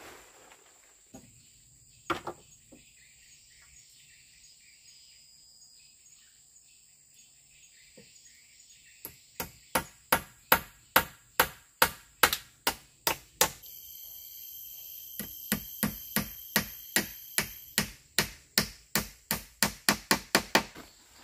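Hand tool striking over and over, as in chopping or hammering: a few scattered knocks, then about nine seconds in a steady run of sharp blows about two a second, quickening near the end. A steady high insect drone runs underneath, with a louder buzzing insect call joining for a few seconds in the middle.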